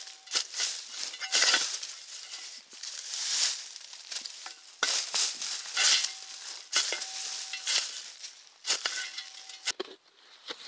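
A shovel digging into gravelly sand: irregular scraping, crunching strokes about once a second as the blade bites in and the sand and pebbles are thrown aside.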